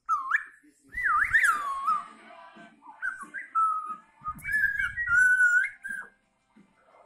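Blue-fronted Amazon parrot giving a string of whistled calls, four or five in a row, each sliding up and down in pitch.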